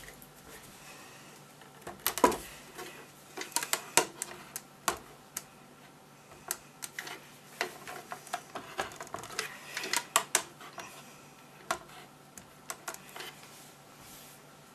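Irregular clicks, knocks and light scrapes of a heavy valve amplifier's metal chassis being set down and nudged into place on a wooden board, the loudest knocks about two, four and ten seconds in, over a faint steady hum.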